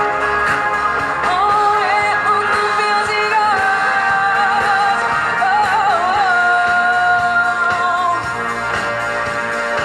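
Live pop-rock band playing, a female lead singer singing a melody with bent notes and a long held note over electric guitar, bass and drums.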